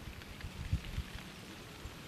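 Wind buffeting the microphone by open water: irregular low thumps, the strongest about three-quarters of a second and one second in, over a faint steady hiss.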